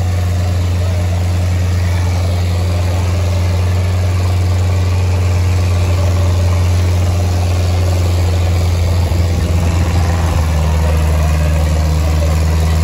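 Sonalika 750 tractor's diesel engine running steadily while pulling a set of three harrows, a loud, even drone whose note shifts slightly about nine seconds in.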